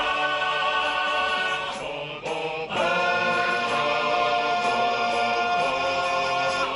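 Music of voices singing long held, chant-like notes, with a brief break about two seconds in before the next held note.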